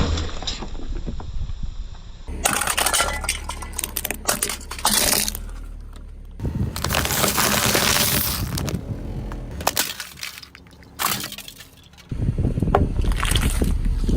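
Brittle objects being crushed under a car's tyre, cracking, snapping and crunching, over several cut-together clips with abrupt changes between them.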